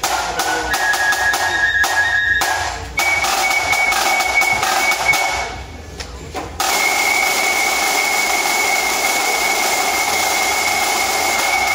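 A drum and fife corps playing: fifes on short high notes over sharp side-drum strokes. A little past halfway, after a brief dip, the fifes hold one long high note over a continuous drum roll.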